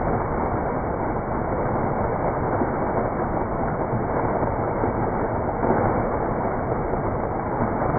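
Fountain water splashing and rushing steadily.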